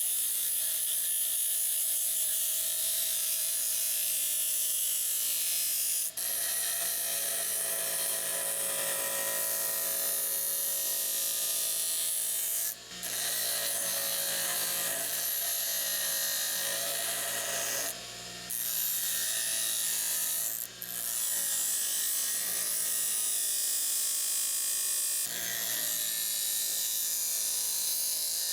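Power grinder grinding steel: the rebar folding-fork blank, its handles held closed, is ground all the way around. A steady grinding hiss over the motor's whine, broken off briefly about five times.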